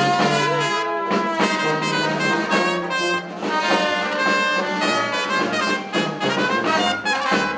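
Background music led by brass instruments, with short melody notes over a moving bass line.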